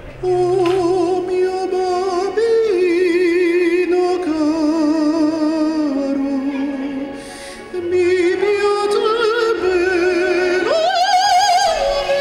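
A solo voice singing in an operatic style, holding long notes with a wide vibrato. The voice breaks off briefly about seven seconds in, then climbs to a high held note near the end.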